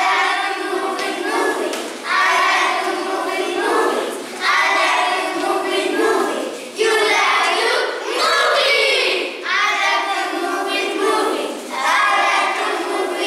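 A group of young children singing together in unison, in short phrases of about two seconds each with brief breaks between them.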